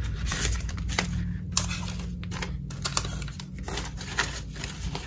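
Clear plastic zip pocket crinkling and paper banknotes rustling as cash is pulled out of the pocket and fanned in the hands, in many short, irregular crackles.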